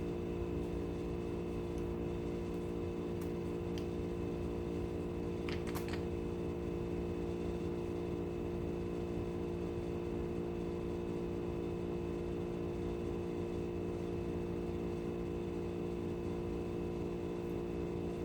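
Steady machine hum, even in level and pitch throughout, with a single faint click about six seconds in.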